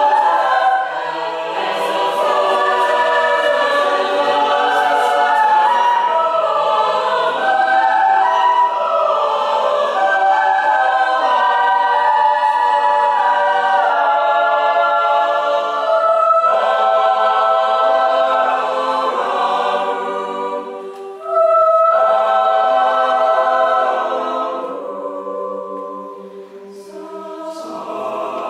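Mixed choir of high-school voices singing sustained chords in parts. About twenty seconds in the voices drop back briefly and then come in loud all together, and they soften near the end before swelling again.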